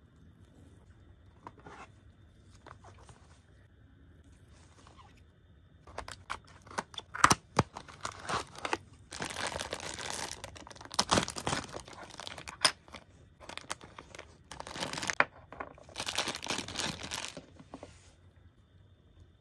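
Thin clear plastic bag crinkling as it is handled and opened, in loud bursts from about six seconds in until shortly before the end, with a few faint taps before that.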